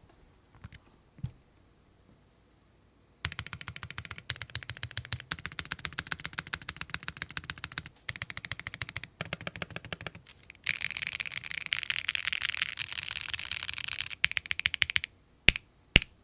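Typing on a mechanical keyboard fitted with Akko Stellar Rose light linear switches (pre-lubed, PA12 housing, T5 stem) in an aluminium-plate, top-mount board with no foam, with a sound that is deep and clacky. A few lone keystrokes give way to fast runs of typing with short pauses, then a very rapid flurry, then a few single hard keystrokes near the end.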